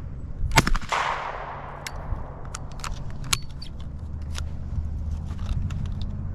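Shotgun fired at a skeet target: two sharp cracks in quick succession about half a second in, the second trailing a long echo, followed by a few lighter clicks and knocks.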